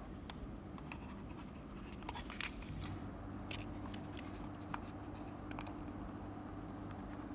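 Computer mouse buttons being clicked: a scattered handful of sharp clicks, loudest and most frequent about two to four seconds in, over a low steady hum.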